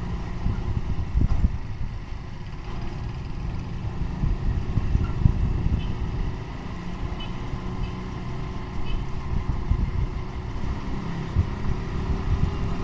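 Motorcycle running at low road speed, heard from the rider's seat as a steady, uneven low rumble.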